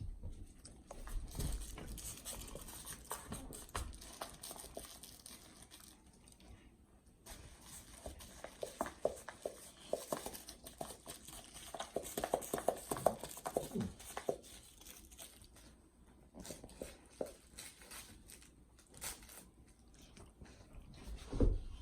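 A silver Labrador chewing and working a plush dog toy, its crinkle material crackling and crunching in irregular spells.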